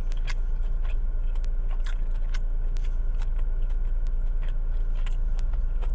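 Close-up chewing and crunching of a fried chicken sandwich: scattered short crunchy clicks over a steady low hum.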